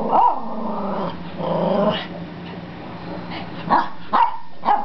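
A pet dog vocalizing, with drawn-out wavering whines and grumbles, then three short sharp yips in the second half. It is eager to get at the stick bug the girl is holding.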